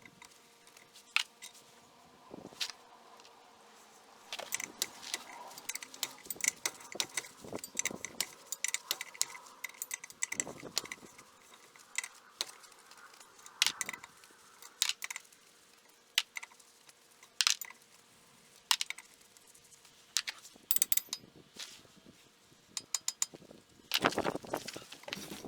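Irregular metallic clinks and clicks of hand tools and metal parts being handled while working on a vehicle's front wheel hub, a few louder knocks among them.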